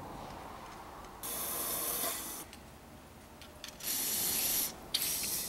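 Aerosol can of rust-inhibitor spray hissing in three bursts: a longer one about a second in, then two shorter ones close together near the end.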